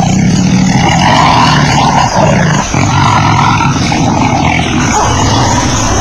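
Lion growling: one long continuous growl with two brief breaks between about two and three seconds in.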